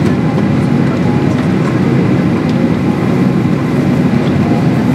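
Steady low rumble of a Boeing 737-800 airliner heard from inside its passenger cabin while on the ground before takeoff.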